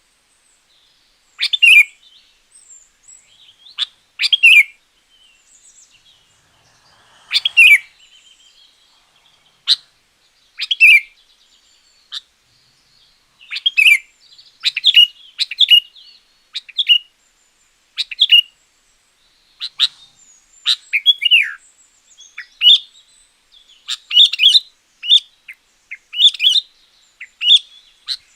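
Sooty-headed bulbul (kutilang) singing: short, loud chirping phrases with gaps between them, spaced a few seconds apart at first, then coming in quick succession from about halfway through.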